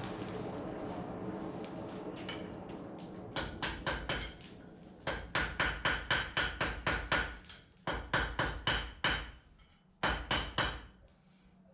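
Blacksmith's hammer blows ringing on metal at an anvil, about three to four strikes a second in four short runs with brief pauses between. A steady noise fades away before the hammering begins.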